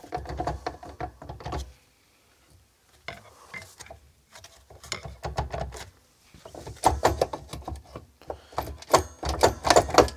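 A screwdriver working a screw out of a molded plastic circuit-breaker housing, then the breaker's plastic and metal parts being handled and shifted: irregular clicks, scrapes and knocks in three spells, densest and loudest near the end.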